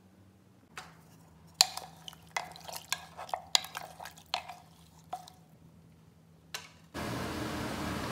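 Wooden spoon stirring soup in a terracotta clay pot, knocking and scraping against the pot's sides in a quick run of sharp taps. Near the end a loud, steady hiss starts abruptly.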